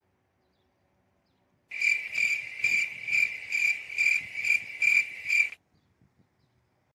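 Cricket-like chirping: one high tone pulsing a little over twice a second, starting suddenly about two seconds in and cutting off suddenly near the end.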